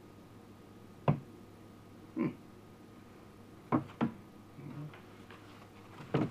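Old stiff folded paper being handled and unfolded, giving about six separate sharp crackles and taps spread out over several seconds.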